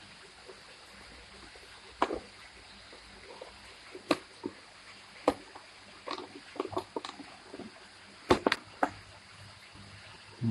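Scattered clicks and knocks of plastic toy parts being handled and pushed into place during assembly of an electric ride-on toy bike, with the loudest pair of knocks about eight seconds in.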